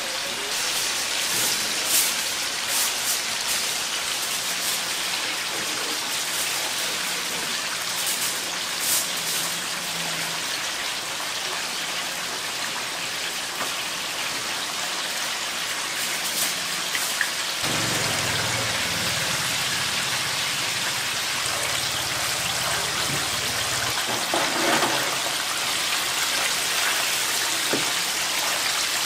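Chicken pieces deep-frying in a vat of hot oil, a steady sizzling hiss with a few sharp crackles and clicks. A low hum joins a little over halfway through.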